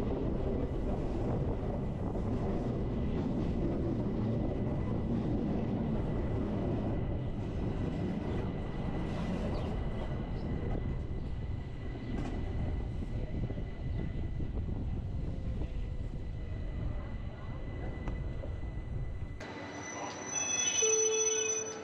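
Bernese Oberland Railway narrow-gauge train running: a steady rumble of wheels on rail with a thin, constant high whine. About two seconds before the end the train noise stops abruptly, and a few short beeping tones follow.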